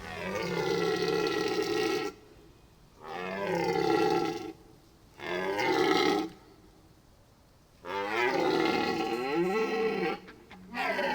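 A large animal roaring: four long, loud calls with gaps between them, each bending in pitch.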